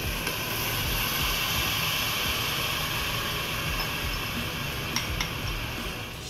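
Soy-based sauce sizzling steadily as it is poured into a hot pan of browned chicken drumsticks, with a couple of light clinks from the glass bowl about five seconds in.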